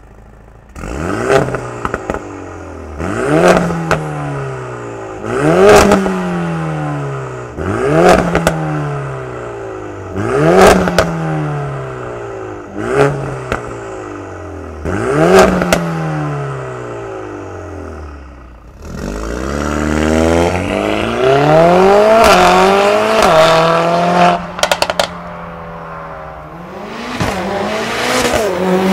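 Mercedes-AMG A45 S's turbocharged 2.0-litre four-cylinder (M139), heard through a Stone catted downpipe and Akrapovič cat-back exhaust in Sport mode. It blips up from idle about seven times, each rev climbing quickly and falling back slowly, with crackles at the top. About two-thirds of the way through, the car accelerates hard with a gearshift, crackles as the throttle lifts, then pulls again near the end.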